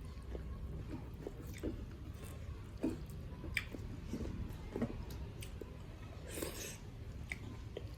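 A person chewing food right at the microphone, with irregular wet smacks and small clicks of the mouth. There is a brief louder noisy sound about six and a half seconds in.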